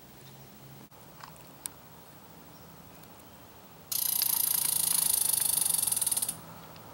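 A squirrel's loud, rapid, rattling chatter, starting abruptly about four seconds in and lasting about two and a half seconds. A couple of faint ticks come before it.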